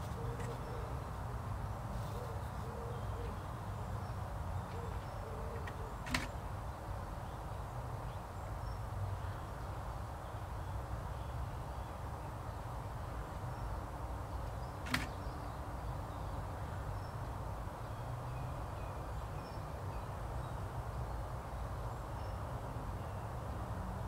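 Steady low outdoor background rumble with faint distant bird calls and two sharp clicks, about six and fifteen seconds in.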